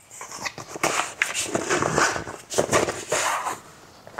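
Rustling and knocking as a VIAIR 88P portable air compressor and its coiled hose and power cord are pulled out of a fabric carry bag, with fabric scraping and plastic and rubber rubbing in irregular bursts.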